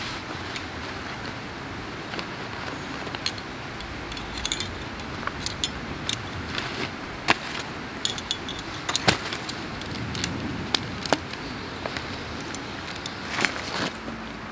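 Camping gear being unpacked by hand: small metal fittings clinking and jangling in a string of irregular sharp clicks, some with a brief metallic ring, over a steady rustle of handled nylon sacks and packaging.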